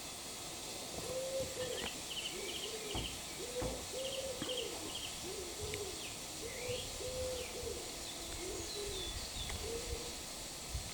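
A pigeon cooing over and over in a steady series of low, rounded phrases, with a small songbird chirping and trilling higher up now and then.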